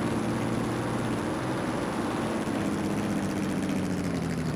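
Electric RC car's drive motor and gears running with a steady low hum, the pitch sagging and dying away near the end as the car slows to a stop.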